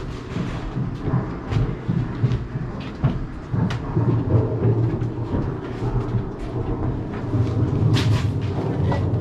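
Scattered sharp cracks of airsoft gunfire over a steady low rumble, the loudest crack about eight seconds in.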